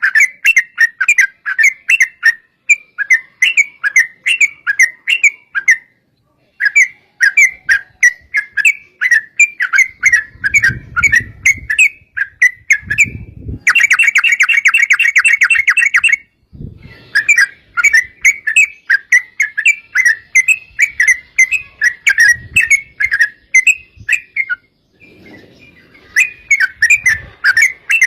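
Yellow-vented bulbuls singing a long run of quick, bubbly chattering phrases, with a fast rolling trill (the 'ropel') in the middle.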